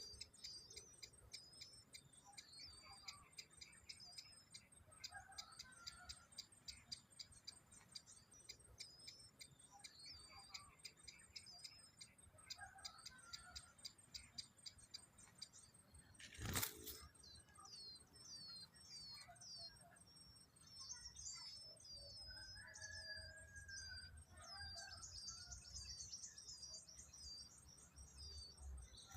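Faint chirping of small birds: quick, repeated high chirps in the first half, then a run of more varied chirps. A single sharp click a little past halfway is the loudest sound.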